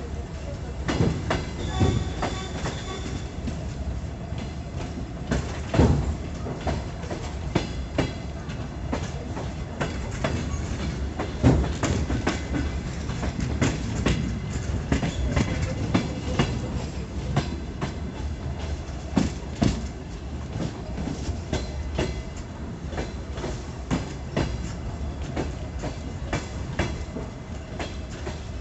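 DR1A diesel multiple unit running over the track, heard from an open carriage window: a steady low rumble with irregular wheel clacks and knocks over rail joints.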